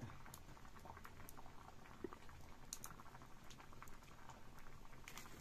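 Faint, irregular crackling from the wood fire burning under an iron wok.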